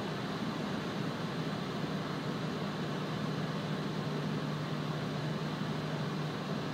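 Two coupled SBB electric locomotives running light at low speed, a steady low electrical hum from their motors and cooling fans over a constant rushing noise.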